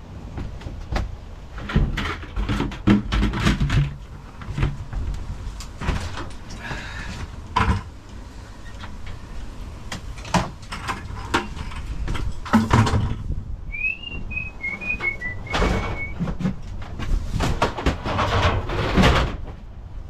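Wind buffeting the microphone, with repeated knocks and clatter of tools and gear being handled. About two-thirds of the way through comes a short run of high chirps that step down in pitch.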